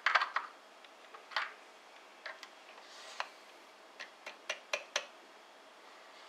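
Sharp, irregular clicks and clinks of brass rifle cases being picked from and set back in a plastic loading block and held up under a bench powder measure as each case is charged with powder.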